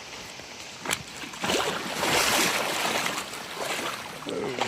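A hiker's legs wading through a river crossing that is getting deep, water splashing and sloshing in repeated surges from about a second and a half in, over the steady rush of the river.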